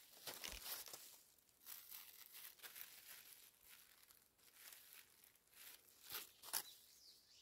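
Faint, brief rustles and crinkles, coming and going, as gloved hands work among the leaves of a young hardy kiwi vine and the black plastic mulch around it, pulling away unwanted shoots.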